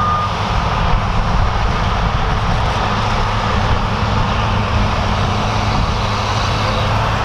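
Large diesel harvest machinery running steadily with a low engine hum and machine noise. The last beep of a reversing alarm ends just at the start.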